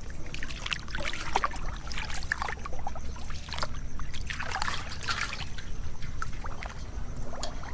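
Water splashing and trickling, with many small irregular splashes over a steady low rumble.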